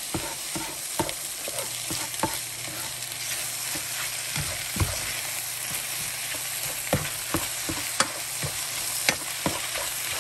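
Egg noodles and eggs sizzling in a granite-coated nonstick frying pan while a cooking spoon stirs them, with irregular taps and scrapes of the spoon against the pan over a steady sizzle.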